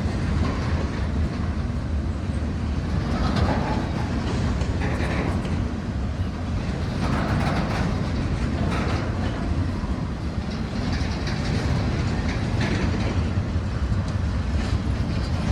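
Freight train of intermodal container cars rolling slowly past: a steady rumble of steel wheels on rail with scattered clicks.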